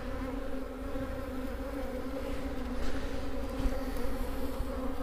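Honeybee colony buzzing from an opened, densely populated hive: a steady, even hum.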